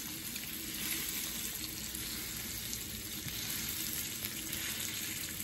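Seasoned steak sizzling steadily in hot oil in a nonstick frying pan.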